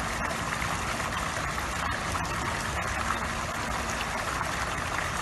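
Pond fountain's water jet shooting out of a squirrel statue and splashing steadily onto the pond surface, an even rushing splash.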